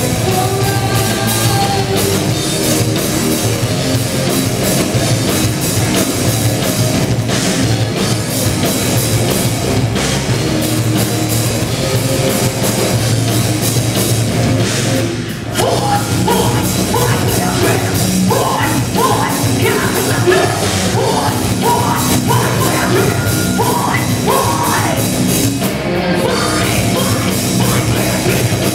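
A metal band playing live at full volume: distorted electric guitars, bass and a drum kit, with a woman singing into a microphone. The band stops for an instant about halfway through, then comes straight back in.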